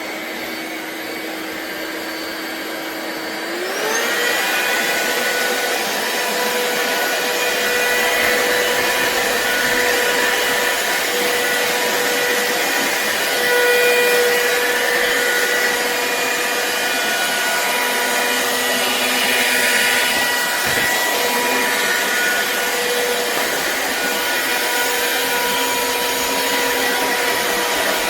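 Black+Decker POWERSERIES+ 20V MAX cordless stick vacuum running with a steady motor whine. About four seconds in, the pitch rises and the sound gets louder as the motor speeds up, then it runs on evenly.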